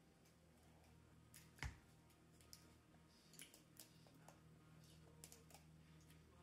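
Near silence: faint clicks as a glass soda bottle is handled and its cap twisted off, with one soft knock a little under two seconds in, over a steady low hum.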